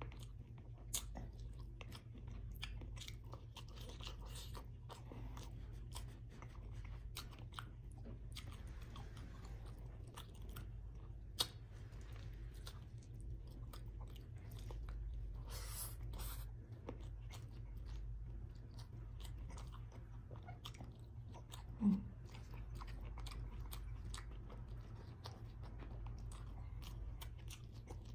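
Close-up eating sounds of a person chewing vinegar-stewed salmon and rice: steady wet chewing with many small mouth clicks and smacks. There is one sharper click about a third of the way through and a brief low throat sound about three-quarters of the way in.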